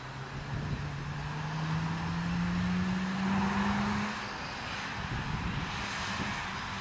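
Mazda RX-7 FC's naturally aspirated 13B twin-rotor Wankel engine accelerating hard, its pitch rising steadily for about four seconds, then falling away.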